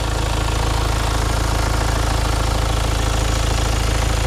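Hyundai Santa Fe TM's 2.0-litre four-cylinder diesel engine idling steadily, an even, stable running sound of a healthy engine.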